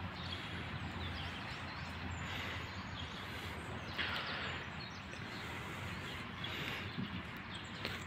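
Steady outdoor background noise of distant road traffic, with a few faint bird chirps now and then.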